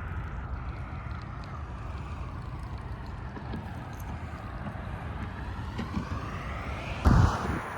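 Wind rumbling steadily on the microphone outdoors, with a short loud rustle or bump about seven seconds in.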